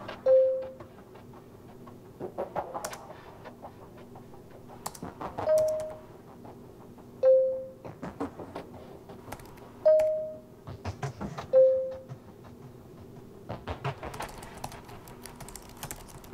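Laptop keyboard typed in short bursts, with five short chat-message notification tones that fade quickly, alternating between a lower and a slightly higher pitch as messages arrive from each side of the conversation.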